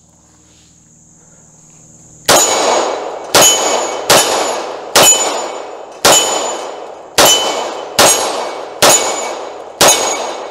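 CZ 75 SP-01 Competition 9mm pistol fired nine times at a steady pace, about one shot a second, starting about two seconds in; each shot has a short decaying echo.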